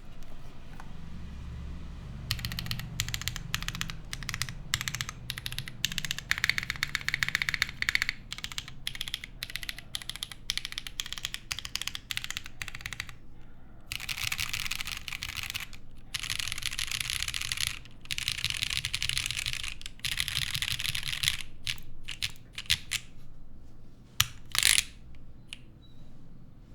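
Fast typing on a TGR 910 v2 ME mechanical keyboard with lubed Holy Panda tactile switches on a polycarbonate plate, keys clacking in quick runs. There are a couple of louder single key strikes near the end.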